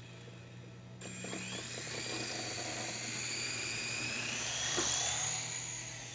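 S107G mini RC helicopter's twin coaxial rotors and small electric motors whining in flight. The whine starts about a second in, rises in pitch and then wavers up and down, with a single click and then easing off near the end.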